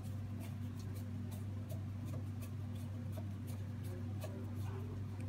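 Screwdriver turning a small screw into the printer's sheet-metal frame, with light, evenly spaced clicks about three a second over a steady low hum.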